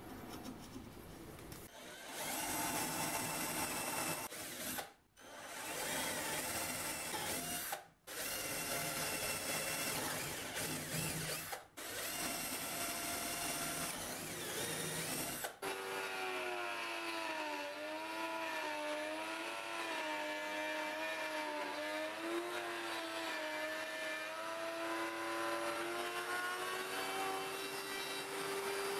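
Cordless drill boring holes in wood, stopping briefly three times between holes. About halfway through it gives way to a router in a router table running with a steady whine that wavers in pitch and rises slightly near the end.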